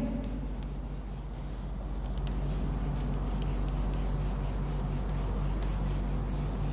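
A whiteboard eraser rubbing marker ink off a whiteboard in repeated wiping strokes, over a steady low electrical hum.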